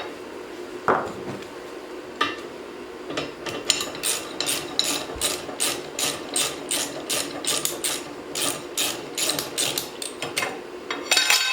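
Socket wrench ratchet clicking in an even run of about three clicks a second, working a tight knife bolt on a wood chipper's drum, after a couple of sharp metal knocks.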